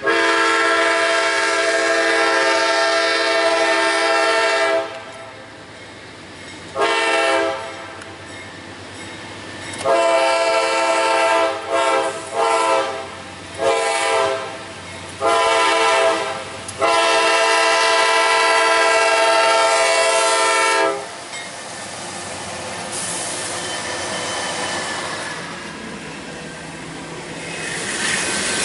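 Freight locomotive's multi-note air horn sounding a string of blasts for the road crossing: a long blast, a short one, a broken run of long and short blasts, then a final long blast that stops about 21 seconds in. After it, the approaching train's rumble, growing louder near the end.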